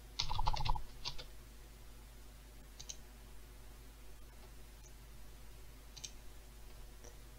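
Computer keyboard and mouse clicks: a quick run of key taps in the first second, then a few single mouse clicks spread out through the rest.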